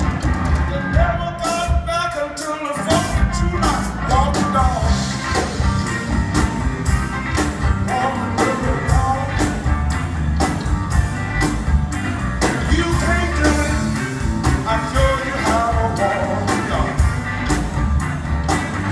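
Live blues band playing: a man singing over electric guitar, bass and a steady drum beat. The bass and drums drop out for a moment about two seconds in, then come back.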